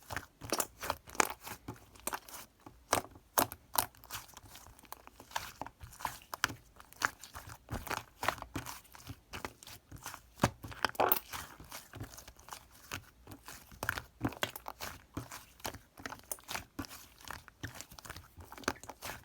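Fluffy slime being squished and stretched by hand, giving irregular sticky clicks and pops, several a second.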